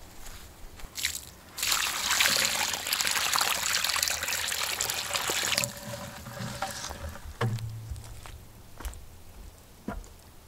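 Water poured onto loose soil around a newly planted sapling: a steady splashing pour for about four seconds that tails off into trickling and scattered drips as the water soaks in.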